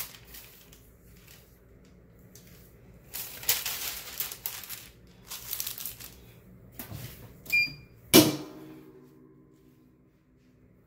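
Hands rustling and smoothing parchment paper over a onesie on a heat press platen. About eight seconds in, the clamshell heat press lid is clamped down with a sharp metal clank that rings briefly, the loudest sound here.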